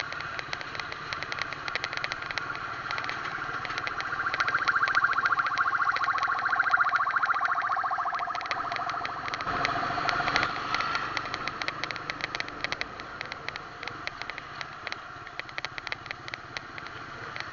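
Vehicle engines in slow road traffic, heard from a moving vehicle, with a rapid ticking throughout. A steady tone swells and fades between about four and eleven seconds in.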